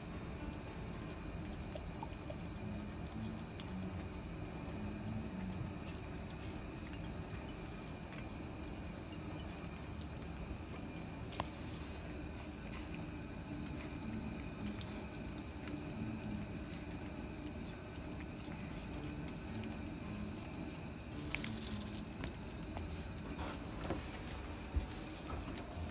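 Kittens eating flaked mackerel, with faint chewing over a low steady background and intermittent high insect chirping in short trills. About 21 seconds in, a loud shrill high-pitched tone lasts under a second.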